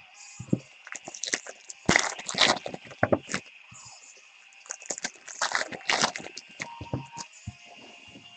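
Trading-card packs being torn open and the cards handled: irregular crinkling and rustling of wrappers and card stock in two bursts.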